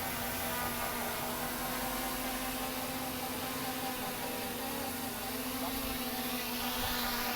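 DJI Mini 3 Pro quadcopter's newly fitted propellers running with a steady buzzing whine over wind noise. Near the end the whine rises in pitch.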